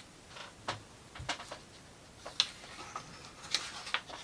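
A handful of sharp, irregular clicks and taps of thin plywood model-kit parts being handled and fitted together.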